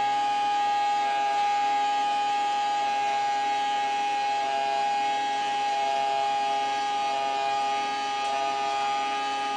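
Electronic bilge pump switch's alarm buzzer sounding one steady, unbroken high tone. It signals a draining anomaly, here a simulated drain pipe rupture.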